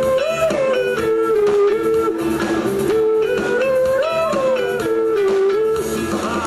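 Band music led by a guitar playing a slow melody of held notes that slide up and down in pitch.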